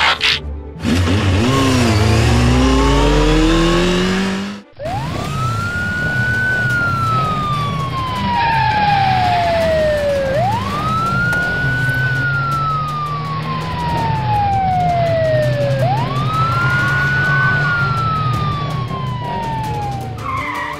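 Siren sound effect in a slow wail, three long cycles, each rising quickly and then falling slowly, over a steady low drone. It comes after a few seconds of a different, noisier effect with falling and rising tones.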